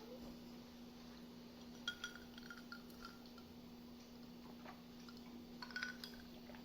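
Faint, light clinking, in two short clusters, over a steady low hum.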